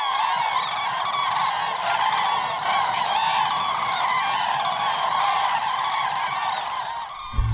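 A flock of geese calling, many honks overlapping in a dense, continuous chorus.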